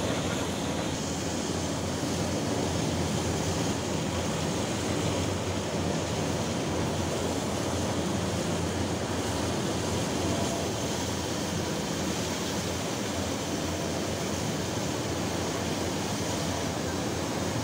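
Steady, even roar of a floating crane loading bulk coal into a ship's hold: the crane's machinery running and the coal stream pouring without a break.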